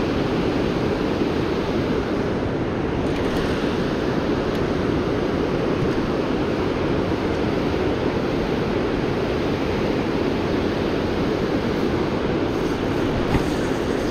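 Steady rush of river water spilling over a long low-head dam (weir), an even, unbroken noise.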